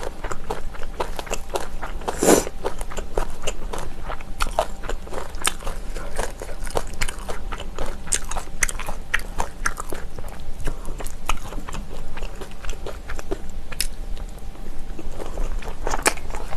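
Close-miked chewing and crunching of kimchi, a dense run of crisp, wet bites and mouth clicks, with one louder crunch about two seconds in.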